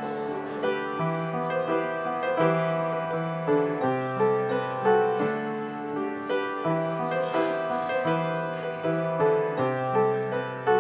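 Upright piano played solo: a steady flow of chords over held bass notes.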